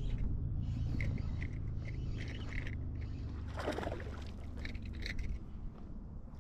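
Fishing kayak on the water: a steady low rumble with light, irregular knocks and clicks, and a brief scrape about three and a half seconds in.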